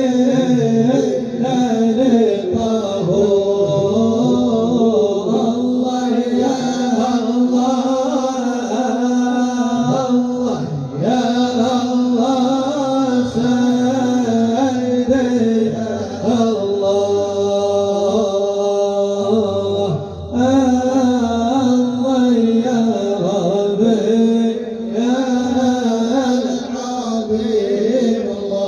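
Arabic Islamic devotional singing, a madih praising the Prophet, performed in a chant-like style with long held, wavering notes.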